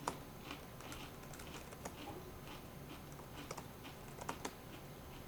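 Faint, irregular keystrokes on a computer keyboard: scattered single clicks with uneven gaps.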